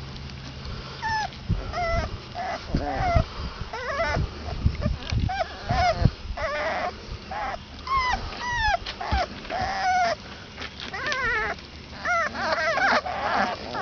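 A litter of 22-day-old basset hound puppies whimpering and squeaking: many short high-pitched cries that slide down in pitch, coming about every second, with several pups crying over one another near the end.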